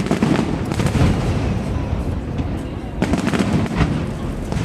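Fireworks exploding overhead: rapid volleys of sharp bangs and crackles over a continuous low rumble, with clusters about the first second and again from about three seconds in.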